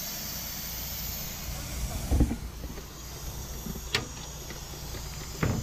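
Steady hiss from an Opel Frontera's radiator, punctured by a bush and leaking, over a low steady engine rumble. A sharp click about four seconds in and a short knock near the end.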